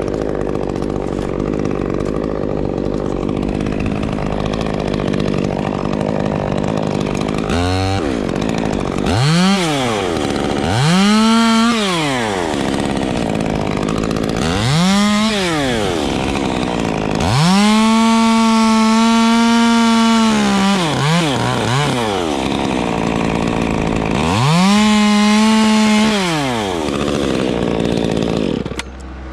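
Small battery-powered top-handle chainsaw revving up in short bursts while pruning pine limbs, its motor whine rising, holding and falling away each time with no idle between. About six bursts, the longest a steady run of about four seconds past the middle. A steady rushing noise comes before the first burst.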